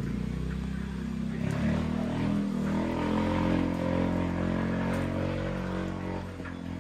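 Motor vehicle engine passing out of view, its note growing louder through the middle and fading away near the end.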